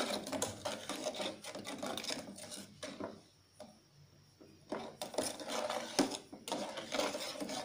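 Metal spoon stirring pudding mix in an aluminium saucepan, scraping and clicking rapidly against the pan's bottom and sides. The stirring pauses for about a second and a half near the middle, then resumes.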